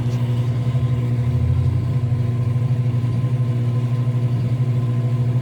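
Enxuta Euromatic washing machine running in its rinse and spin cycle: a steady, loud motor hum with a fast, even pulse.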